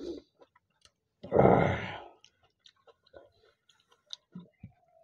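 Eating sounds of people chewing pea-stuffed kochuri: soft wet chewing and small mouth clicks, with one louder breathy exhale lasting under a second, about a second and a half in.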